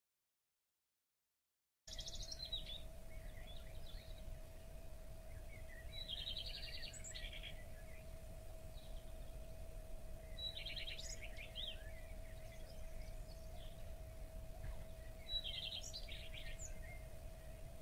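A small songbird singing a short, rapid chirping phrase four times, about every four to five seconds, over a low steady rumble and a faint steady hum.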